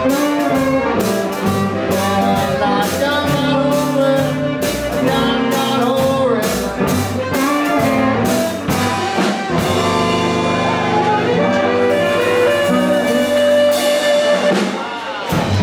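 Live blues band playing: electric guitar, upright double bass, drum kit and amplified harmonica, in a 1950s Chicago-style blues. The steady drum beat drops out about ten seconds in, leaving held, wavering notes.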